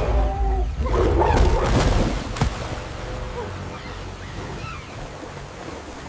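A big cat snarling over heavy splashing and rushing water, with a deep rumble underneath. There are a few sharp splashes between about one and two and a half seconds in, then the water settles to a softer rush.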